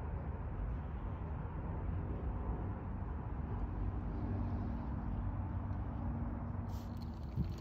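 Mountain bike being ridden over dirt, heard mostly as a low wind rumble on the microphone with tyre and drivetrain noise. Sharper clicks and rattles come in near the end.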